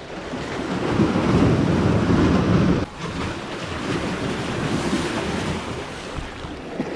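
Sea waves washing against the rocks of a breakwater, with wind buffeting the microphone. The noise swells to its loudest in the first half, drops off suddenly about three seconds in, then carries on steadily.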